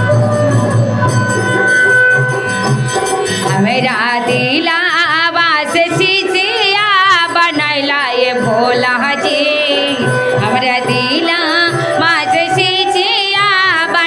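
A woman's amplified voice singing a Shiv bhajan over steady accompaniment. From about four seconds in she sings wavering, ornamented notes.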